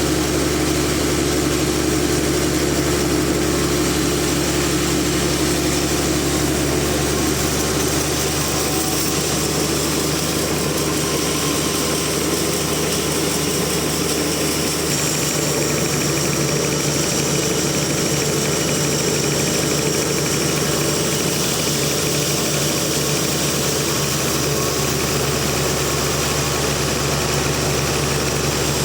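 Sawmill machinery running steadily: a continuous engine hum with an even hiss over it, holding level with no starts, stops or changes.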